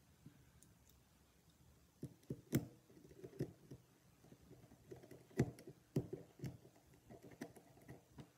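Small screwdriver clicking and scraping on the screws and cam plate of a lock cylinder as the cam plate screws are driven in. Near quiet for about two seconds, then light, irregular metal clicks.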